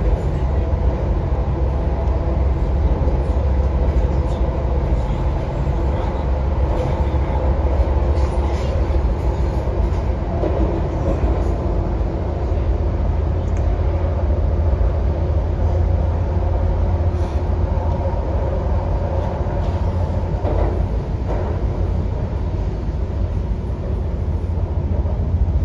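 Interior running noise of an MTR CNR Changchun EMU (C-Train) electric train in a tunnel: a steady low rumble of wheels on track, with a constant hum of several tones over it, heard from inside the car.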